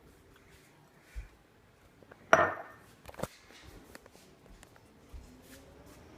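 Kitchen clatter of cookware and dishes being handled: a dull knock, then a loud clank with a short ring a little over two seconds in, a sharp knock about a second later, and light taps around them.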